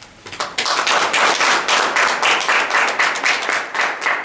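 A small audience applauding, starting about half a second in and dying away at the end.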